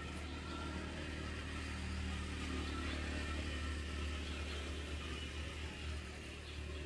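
A motor vehicle's engine running steadily as a low hum, growing louder to a peak about halfway through, then easing off a little.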